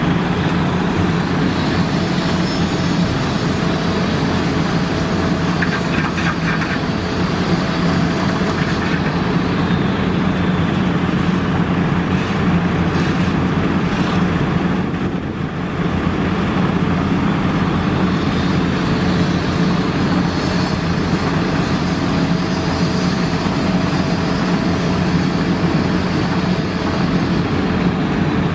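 Asphalt paver's diesel engine running steadily, a constant low hum with a fainter steady whine above it, dipping briefly about halfway through.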